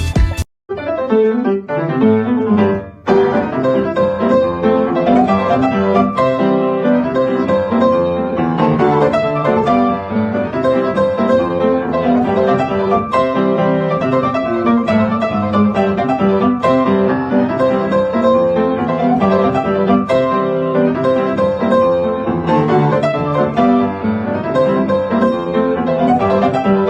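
Piano music with many quick notes, and a faint bowed string part beneath it.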